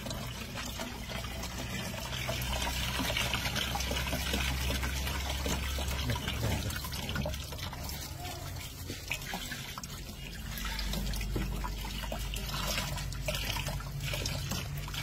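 Fermented rice mash poured from a clay pot into a cloth strainer, then the cloth bag squeezed by hand, the strained rice beer trickling and splashing into a plastic drum.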